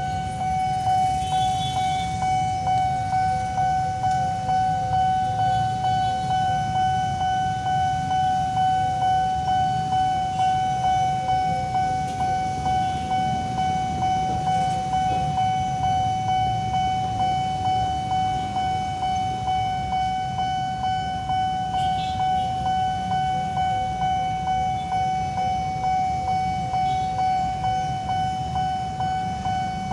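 Railway level-crossing warning bell ringing steadily, a ringing tone repeated about twice a second, sounding while the crossing is closed for an approaching train. A steady low rumble lies underneath.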